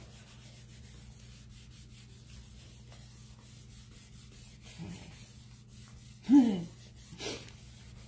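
Hands rubbing and pressing glued scrapbook paper onto a papier-mâché storage book over newspaper, a faint papery rubbing that smooths out lumps and bumps under the paper, over a low steady hum. About six seconds in, a short laugh, the loudest sound, falling in pitch.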